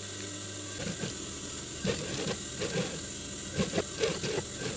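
Industrial sewing machine stitching, running in short irregular spurts of knocking and clatter that start about a second in, with a steady motor hum before that.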